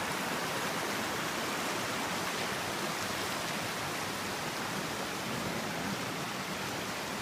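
Steady rush of falling and running creek water, a waterfall close by.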